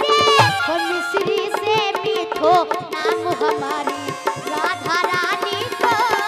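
Devotional bhajan music: a girl's singing voice holds a wavering note at the start. A hand-drum rhythm and melody instruments over a steady drone carry on after it.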